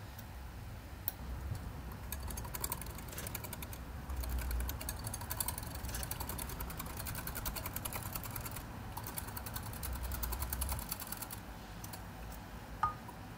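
An egg, milk and cream mixture being whisked by hand in a drinking glass, the utensil clicking rapidly against the glass for about ten seconds. Near the end comes a single short glassy clink.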